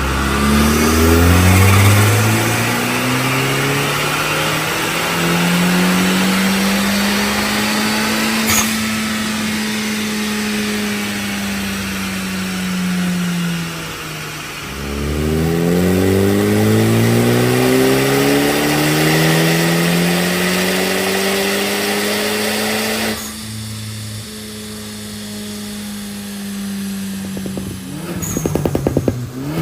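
Tuned Hyundai Elantra Sport 1.6-litre turbo four-cylinder engine and exhaust, its revs climbing and then slowly falling twice, with a single sharp crack on the first fall. Near the end comes a rapid string of exhaust crackles and pops on the overrun, the pops-and-bangs effect of an ECU tune.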